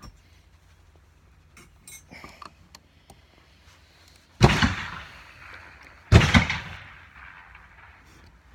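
Two gunshots about a second and a half apart, each with a long echoing tail. Before them, a few light metallic clicks from handling the percussion revolver.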